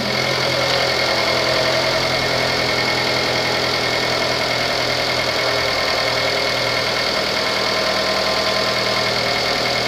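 2015 Chrysler 200's 2.4-litre MultiAir inline-four engine running at a steady idle.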